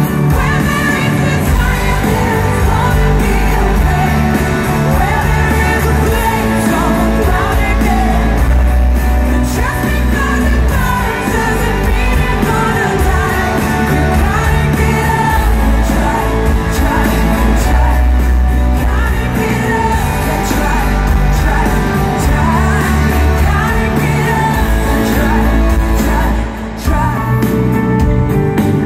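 Live pop-rock band playing with a woman singing lead, loud through a stadium PA and recorded from the stands, with a heavy low end.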